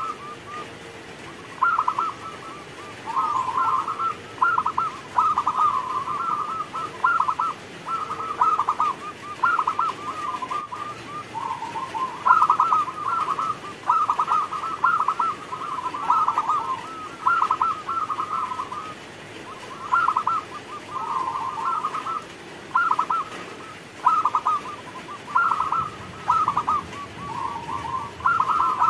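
Zebra dove (perkutut) singing: phrase after phrase of rapid, staccato cooing notes, each phrase about a second long, with short pauses between them.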